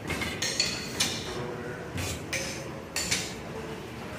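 Antique stationary engines running, their exposed valve gear and linkages clicking and clinking in an uneven metallic clatter, two or three sharp ringing clicks a second over a low mechanical rumble.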